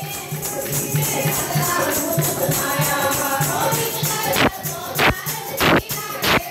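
Woman singing a devotional kirtan into a microphone over a steady low beat and jingling hand percussion. From about four and a half seconds in, loud sharp distorted strokes cut through the singing, the faulty sound the uploader apologises for in the title.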